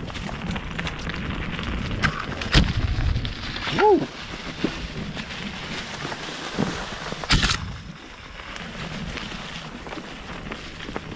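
Mountain bike riding fast down a rough, gravelly trail: tyre and frame rumble with rattles and clicks from the bumps. Two harder knocks, about two and a half and seven seconds in, and a brief squeak about four seconds in.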